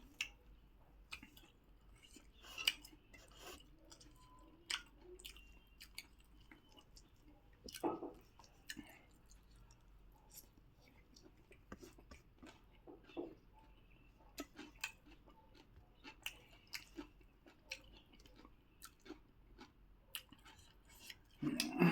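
Close-up chewing and mouth sounds of a person eating puri with pickle and curry: irregular soft smacks and clicks.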